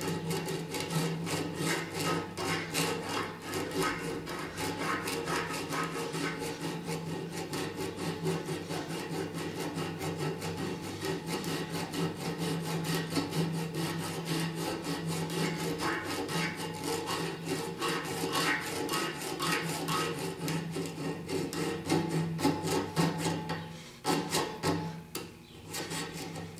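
Round chainsaw file rasping back and forth in quick, steady strokes inside the hole of a DK1 Death Klutch gopher trap's metal trigger, sharpening the inside of the hole. The strokes falter briefly a couple of seconds before the end, then carry on.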